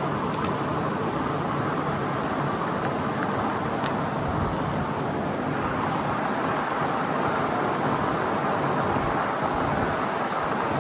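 Electric fan running on high, a steady whooshing rush of air, with a couple of faint ticks about half a second and four seconds in.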